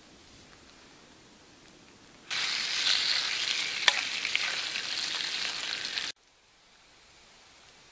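Raw beef burger patty sizzling on a hot steel shovel blade over a campfire, with a few sharp crackles. It starts suddenly about two seconds in and cuts off abruptly about six seconds in.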